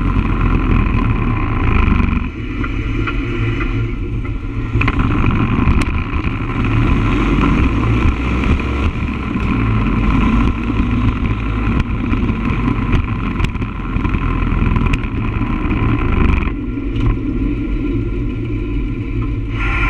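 Motorcycle engine running while riding along a road, with steady road and wind noise. The engine note drops back twice, about two seconds in and again near the end, as the throttle eases.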